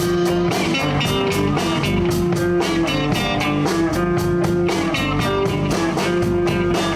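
Live blues band playing a straight 12-bar blues in 4/4: electric guitar playing lead over bass and a drum kit, with held, bending guitar notes.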